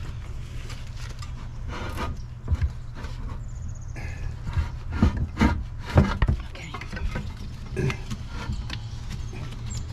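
Scattered knocks, clunks and rubbing of parts being handled, the loudest few a little past the middle, over a steady low hum.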